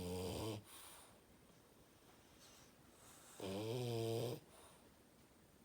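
French bulldog snoring: one pitched, wavering snore trails off about half a second in and a softer breath follows, then a second snore lasts about a second, starting about three and a half seconds in.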